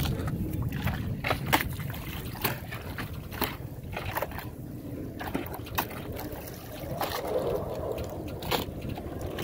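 Water lapping and sloshing against the hull of a small boat, with scattered sharp knocks.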